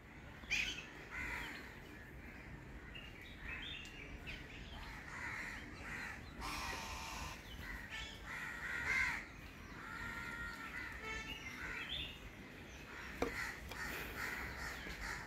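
Crows cawing again and again, mixed with the calls of other birds, including a quick rattling call about two-thirds of the way through.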